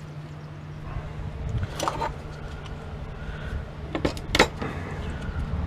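Scrap motor parts being handled, giving a few sharp clicks and clanks over a steady low hum.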